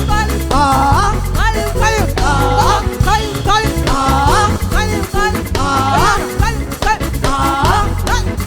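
Band playing upbeat African gospel praise music: steady drums and heavy bass under a lively melody that slides and bends in pitch.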